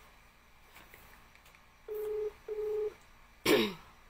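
Telephone ringback tone through a phone's speaker: a double ring of two short steady low beeps about two seconds in, part of a repeating cycle, meaning the call is ringing and not yet answered. About three and a half seconds in, a brief voice sound slides down in pitch, the loudest moment.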